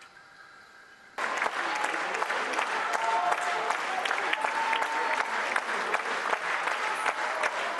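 Theatre audience applauding: after a quiet first second, the clapping breaks in suddenly and keeps going, dense and steady, with a few voices calling out over it.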